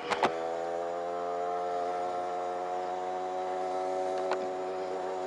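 Rieju RS2 Matrix Pro motorbike engine running at a steady speed while riding, a steady buzzing hum that holds one pitch. Two sharp clicks sound just after the start, and a fainter one about four seconds in.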